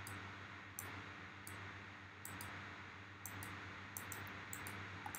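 Faint computer mouse clicks at irregular intervals, coming faster toward the end, over a faint steady hum.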